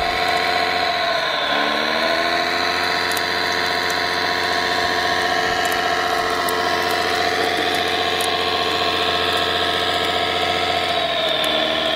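Engine sound of a radio-controlled Caterpillar D9 bulldozer model running steadily, its pitch dipping and recovering about a second in and again near the end as the dozer works in mud.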